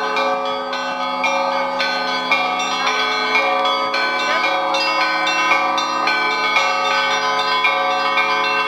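Monastery church bells rung by Russian monks in a festive Orthodox peal. Several bells of different pitches are struck in quick succession, about two or three strikes a second, over the sustained ring of the larger bells.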